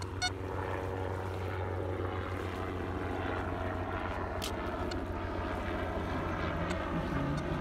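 A steady low engine drone with a few faint clicks.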